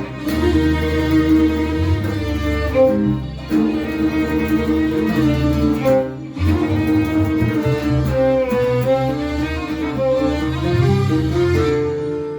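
Instrumental passage of an Arabic song: a bowed string section playing a flowing melody over a steady bass line.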